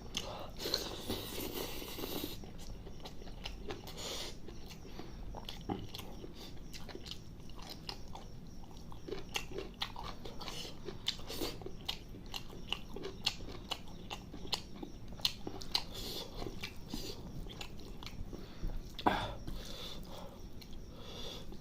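Close-up eating sounds of chicken liver curry with rice: wet chewing and mouth smacks with irregular small clicks throughout.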